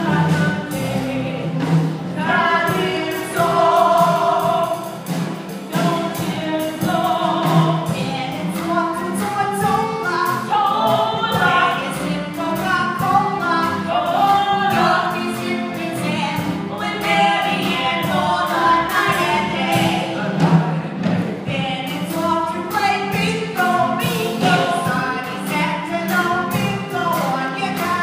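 Music with several voices singing together, choir-like.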